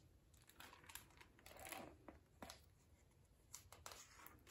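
Hardcover picture book being opened and its pages turned by hand: faint paper and cover rustling with a few light clicks.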